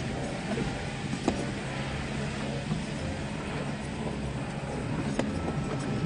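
Car engine running while driving along a rough dirt track, heard from inside the cabin, with a couple of sharp knocks from bumps.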